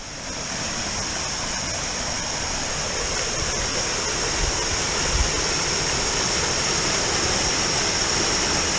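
Steady rush of a waterfall's falling water, growing gradually louder.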